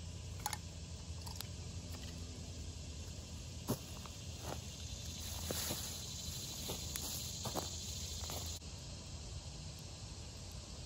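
Handling noise of a bow drill kit being packed up: a scattered series of light clicks and knocks as the wooden pieces and tools are picked up, and rustling as the ground cloth is pulled off the dry leaf litter, over a steady outdoor hiss.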